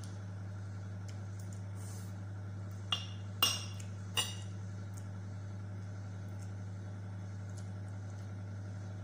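Metal spoon clinking against a ceramic plate three times in quick succession, about three to four seconds in, each a short ringing tap, over a steady low hum.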